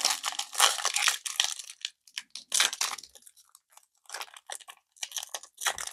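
Foil wrapper of a Donruss football trading-card pack crinkling and tearing in several short bursts as it is worked open. The wrapper is hard to tear open.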